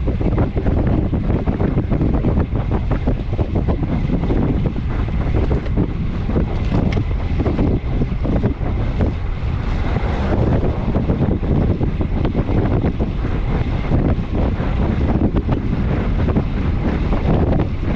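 Wind buffeting the microphone of a camera mounted on a road bike ridden hard and fast: a loud, steady, gusting rush.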